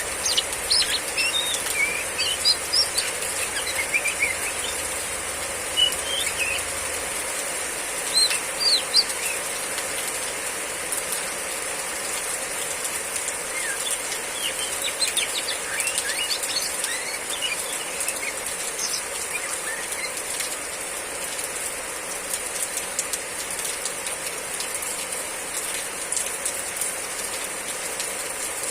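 Female Oriental magpie-robin (kacer) giving short, quick chirping 'riwik' calls over the steady hiss of heavy rain. The calls are frequent through about the first twenty seconds, then thin out, leaving mostly the rain.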